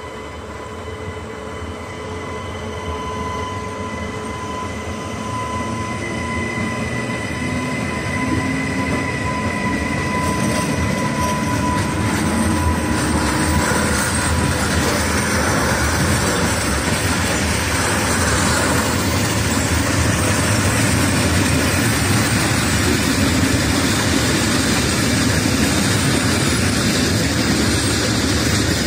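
A train approaching on the line, its rumble growing steadily louder until it runs loud and close through the second half. A steady high tone rides over it in the first half and fades out about halfway.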